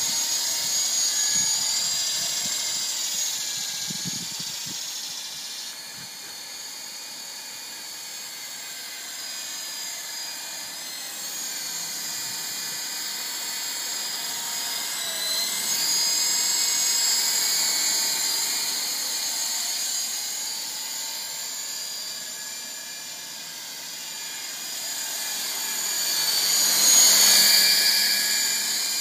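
Syma S33 coaxial RC helicopter in flight: the high whine of its battery-powered electric motors and the whirr of its rotors, slowly rising and falling in pitch as the throttle changes. It grows loudest near the end as the helicopter comes close.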